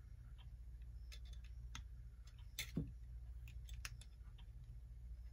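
Small metal clicks and ticks, scattered and irregular, from handling the hands and movement of a Hammond Tripoli day/date clock, the loudest a little past halfway, over a steady low hum.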